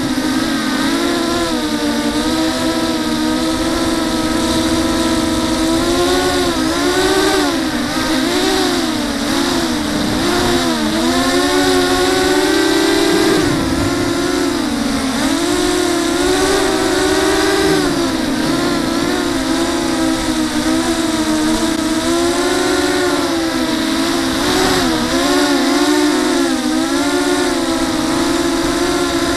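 Racing quadcopter's brushless motors and propellers whining as it flies, the pitch rising and falling constantly with the throttle, heard from its onboard camera.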